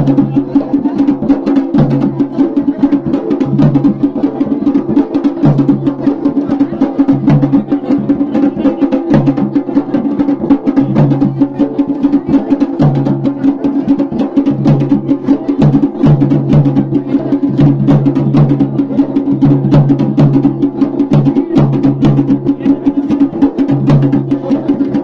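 Instrumental Garhwali folk devotional music: fast, steady drumming over a sustained drone, with a lower held note that comes and goes every second or two.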